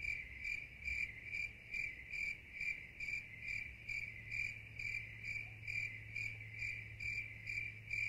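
A cricket chirping in a steady, even rhythm, about two to three chirps a second on one high pitch, over a faint low hum.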